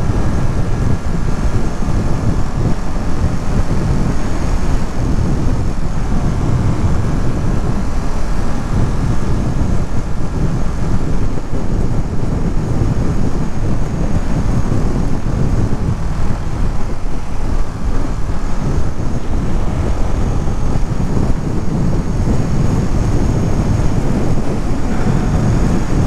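Ducati Monster motorcycle cruising steadily at highway speed, its L-twin engine running under a constant rush of wind and road noise.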